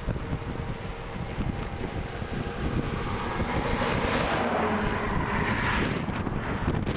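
Wind rumbling on the microphone of a moving bicycle. A car in the oncoming lane swells into a rushing pass about four to six seconds in, then fades quickly.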